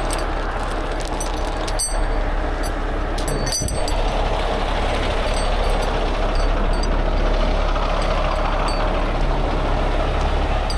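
Diesel engine of a heavy rotator tow truck running steadily with a constant low hum, and a few light clicks over it.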